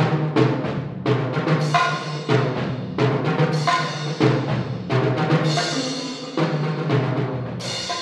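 Solo multi-percussion playing: rapid, accented stick strokes on tom-toms and a large drum, with a cymbal crash near the end.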